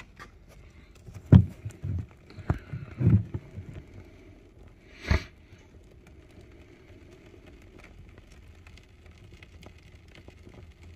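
A few sharp cracks and knocks from a finished wall as two-part pour foam expands and cures inside the stud cavity: the loudest about a second in, a small cluster around three seconds, and one more about five seconds in. The owner takes the sound for the wall cracking under the foam's pressure.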